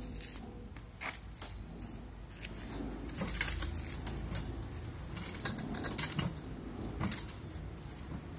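Playground rocking horse on a metal rocker frame clicking and knocking irregularly as a child rocks on it, over a low steady rumble.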